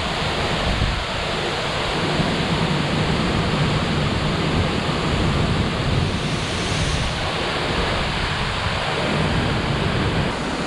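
A waterfall's water crashing down in a steady, dense rush.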